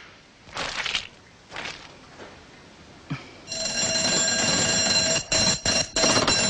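Two short rushing sounds in the first two seconds, then from about three and a half seconds in an electric alarm bell rings continuously, with a few brief breaks near the end.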